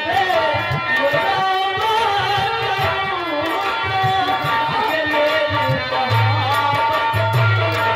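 Live Indian folk-theatre music: a singer's mournful song over a dholak and a large rope-laced drum, with steady held accompanying notes. The voice is heard mainly in the first half; from about six seconds in, heavier low drum beats come to the front.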